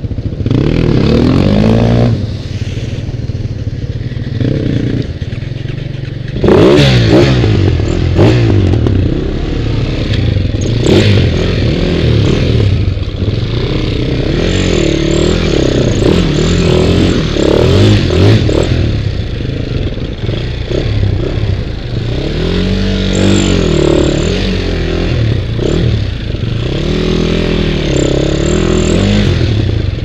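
Husaberg dirt bike's single-cylinder engine revving hard and easing off again and again while riding through a river, with a steady wash of water noise under it.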